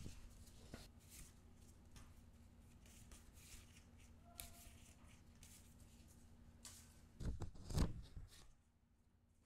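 Gloved hands handling an album's printed paper and card inserts: light rustles, slides and taps of paper as pages are opened and cards laid out. About three-quarters of the way through comes a louder stretch of rustling and scraping as a card is slid out of a paper sleeve.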